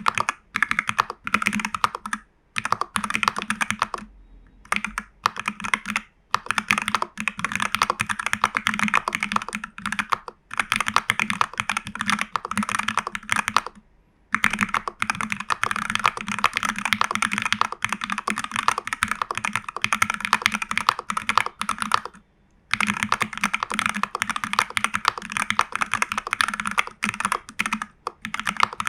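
Fast typing on a TU40 plastic-case mechanical keyboard with Jelly Strawberry v3 switches and CRP keycaps, fitted with case foam, PCB foam and a tape mod: a dense stream of keystrokes broken by a few short pauses.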